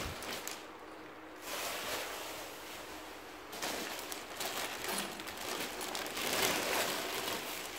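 Clear plastic packaging bag crinkling and rustling as it is handled, in uneven waves that grow louder in the second half.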